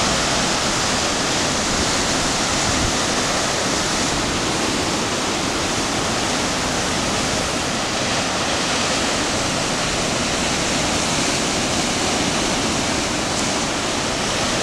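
Ocean surf breaking and washing over a rock shelf: a steady rush of white water.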